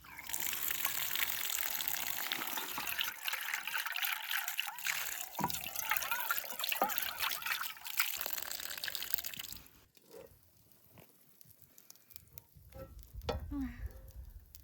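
Food sizzling and spitting in hot oil in a pan, a dense crackling hiss that cuts off abruptly about ten seconds in, followed by a few quieter taps and clicks.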